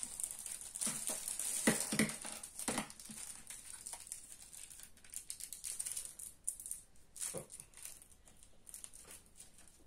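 Small prying tools clicking and scraping against an iPod Video's case while it is being pried open. Irregular light clicks and scrapes, busiest in the first few seconds and thinning out after.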